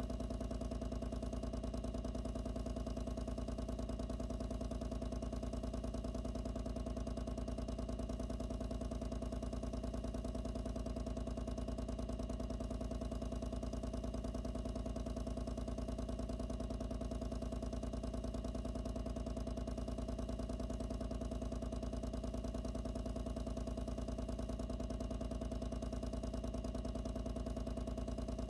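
A loud pump running steadily, picked up by a microphone inside the same box: an even, unchanging hum with a fast pulsing buzz and no music.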